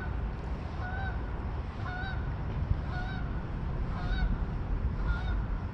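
Geese honking, a series of short calls about once a second, over a steady low rumble.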